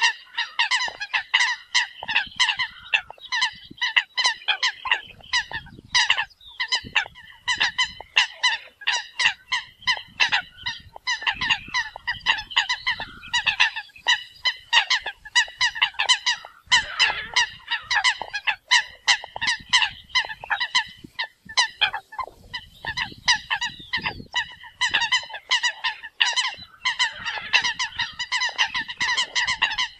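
A flock of Eurasian coots calling: a dense, continuous chorus of short, repeated calls from many birds, several a second and overlapping, with only brief lulls.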